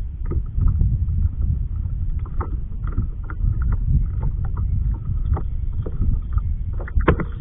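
Wind rumbling steadily on the microphone of a kayak on open water, with scattered small clicks and knocks throughout and a couple of louder knocks near the end.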